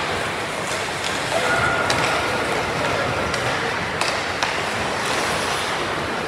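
Ice hockey play: skates scraping the ice over a steady hiss, with a few sharp clacks of sticks and puck, about two seconds in and twice around four seconds in.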